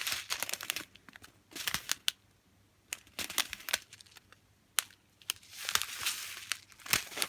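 Small plastic packets of diamond-painting crystal drills being handled, crinkling and rustling in several short bursts with sharp clicks in between.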